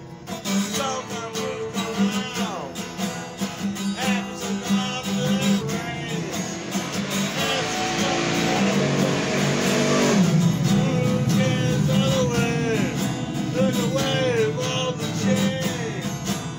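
Acoustic guitar strummed in a steady rhythm, with a man's voice singing a wavering melody over it. The strumming grows denser and louder for a few seconds past the middle.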